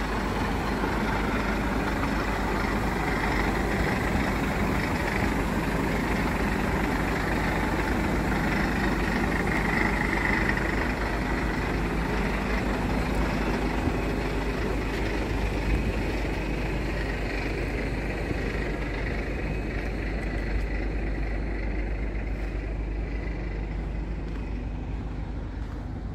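Scania R420 truck's diesel engine idling steadily.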